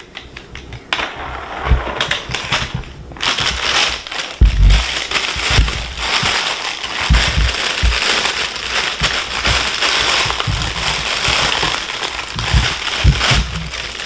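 Clear plastic packaging bag being crinkled and pulled open by hand, a dense rustling that starts about a second in and gets fuller from about three seconds, with scattered dull knocks from handling.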